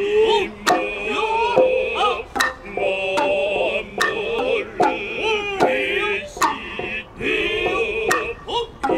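Noh hayashi ensemble playing: sharp, cracking drum strikes every half second to a second, a high, wavering bamboo flute tone, and long drawn-out voices calling or chanting with bending pitch.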